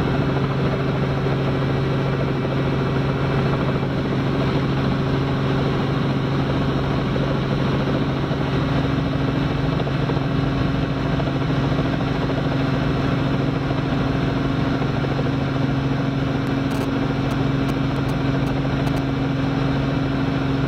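Robinson R44 helicopter heard from inside the cockpit, its rotor and piston engine giving a steady, even drone at constant rotor speed while it lifts off a sloping pad into the hover. A few faint ticks come near the end.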